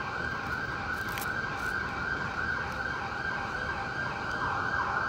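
Emergency vehicle siren in a fast yelp, its pitch sweeping up and down several times a second, over a steady hum of city traffic.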